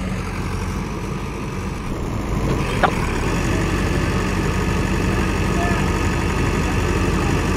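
Heavy diesel engine of a JCB backhoe loader running steadily, a little louder from about two seconds in, with one brief click near the middle.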